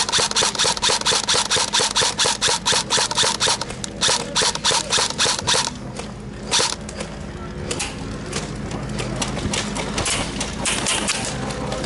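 Airsoft electric gun (AEG) firing on full auto: a long rapid burst of about nine shots a second over a motor whine, broken briefly partway through, then a short burst. Fainter bursts follow in the second half.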